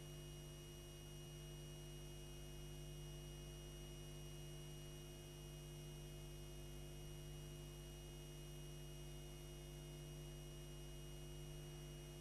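Faint, steady electrical mains hum with a layer of hiss, the background noise on the audio track of an old videotape leader.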